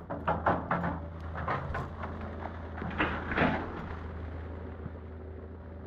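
Footsteps and rough handling of a handheld camera while walking over a muddy, rain-washed dirt road: a handful of irregular scuffs and knocks in the first few seconds, over a steady low hum.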